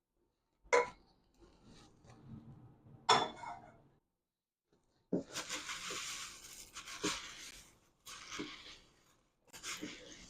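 Cornflakes being stirred through a melted butter, honey and sugar mixture in a bowl for honey joys. Two sharp knocks of the utensil against the bowl come first, then, about halfway in, crunchy rustling strokes of the coated flakes: one long stroke and then shorter ones.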